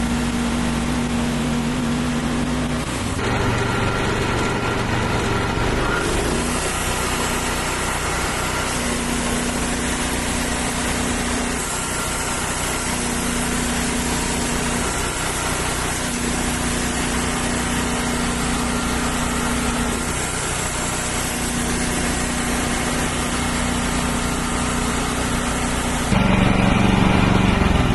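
Wood-Mizer portable band sawmill running at full speed, its band blade cutting through a black walnut log. Near the end the sound changes and the engine pitch drops.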